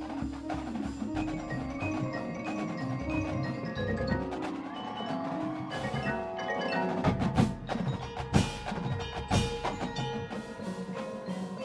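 Marching band music, carried by the front ensemble's mallet percussion: marimba, glockenspiel and chime-like struck notes over drums. A few louder percussion hits land about two-thirds of the way through.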